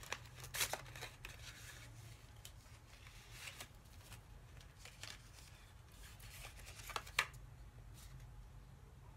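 Rustling and crinkling of paper and card as a gift card is picked up and handled, with two sharper crackles, one under a second in and one about seven seconds in.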